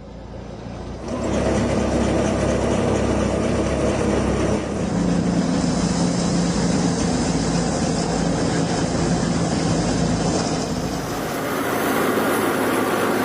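Farm machinery running steadily with a dense mechanical noise. It fades in over the first second and shifts abruptly in tone about 5 and 11 seconds in.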